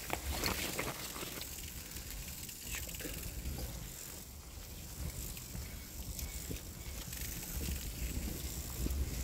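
Bicycle riding over a muddy dirt track: a steady low rumble of wind and tyres on the microphone, with scattered clicks and rattles from the bike over bumps.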